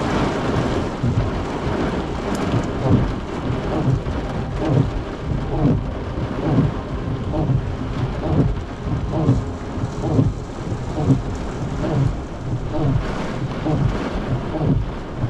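Heavy thunderstorm rain pelting a car's roof and windshield, heard from inside the cabin as a dense roar that keeps swelling and easing.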